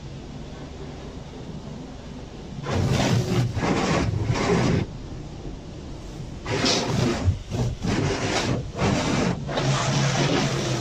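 Automatic car wash water jets spraying onto the car, heard from inside the cabin as two loud bouts of hissing, drumming water, the second starting about six and a half seconds in. A steady low hum runs underneath.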